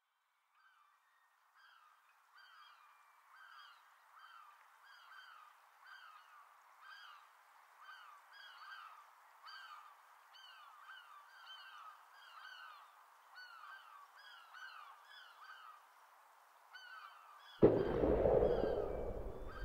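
Birds calling faintly and repeatedly, about two calls a second. Near the end a sudden loud, deep boom cuts in and rumbles away over a couple of seconds.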